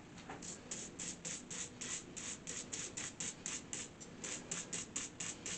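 Toothbrush scrubbing a toothpaste-coated silver chain on the edge of a sink, with short, even brushing strokes about four a second.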